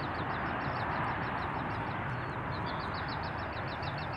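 Steady jet noise from a Boeing 777-300ER's GE90 engines as the airliner comes in to land. Over it a small bird trills in quick, high chirps, pausing for about a second in the middle.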